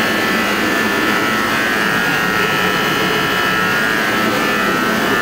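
A machine running steadily, a constant loud drone with a high whine that doesn't change.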